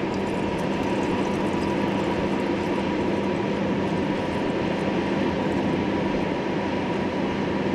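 A steady motor drone with a constant low hum and a faint higher tone, holding at one level throughout.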